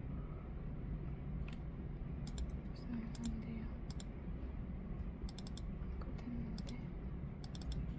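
Computer keyboard being typed on in short runs of a few quick keystrokes, with pauses between them, over a steady low room hum.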